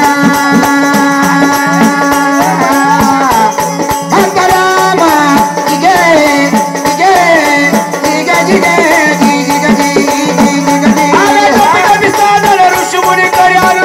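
Marathi jagaran-gondhal folk devotional music without singing: a held and gliding melody over steady rhythmic percussion and jingling rattles.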